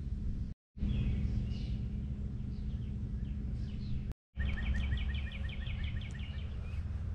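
Outdoor ambience of songbirds chirping, with a rapid trill of quickly repeated notes in the second half, over a steady low rumble and hum. The sound cuts out briefly twice.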